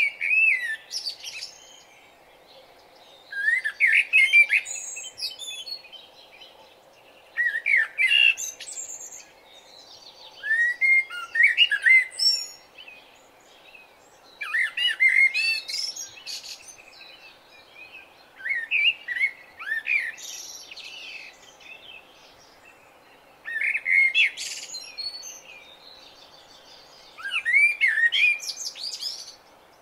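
A songbird singing short, varied warbled phrases, one about every four seconds, over a steady background hum.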